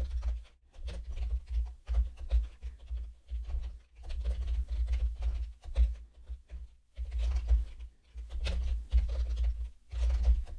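Typing on a computer keyboard: uneven runs of keystrokes with dull thuds, broken by short pauses.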